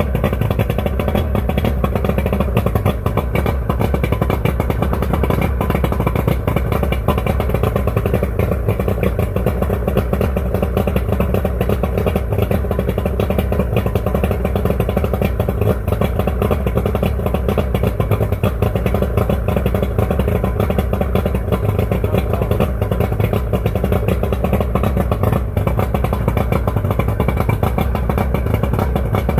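1996 Mercury two-stroke outboard idling steadily with its cowling off; no clear miss is heard.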